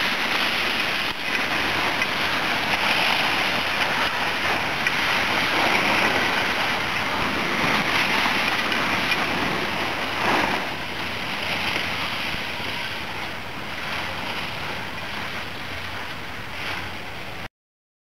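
Steady hiss of skis sliding and scraping over packed snow on a downhill run, with wind rushing past, swelling and easing every few seconds. It grows a little quieter over the last few seconds and cuts off suddenly near the end.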